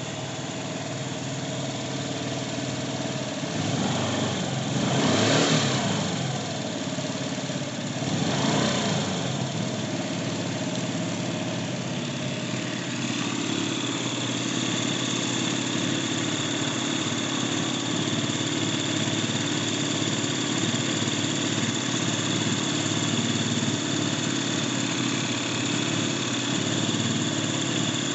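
Honda Tact scooter's small four-stroke engine running: it is revved up and down twice in the first several seconds, then settles into a steady idle.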